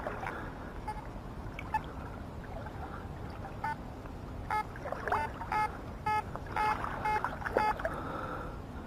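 Metal detector giving a run of short, repeated beeps over a target in the second half, while water sloshes around it as it is swept through the shallows of a lake.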